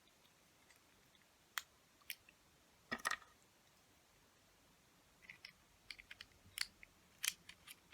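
Small plastic clicks and taps of 1980s Gundam model-kit parts being handled and pressed together: a few single clicks in the first three seconds, then a quicker run of light clicks from about five seconds in.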